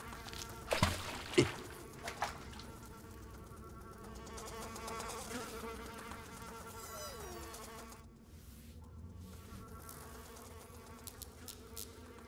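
Buzzing of flies, a steady drone that holds through, with two sharp knocks about a second in.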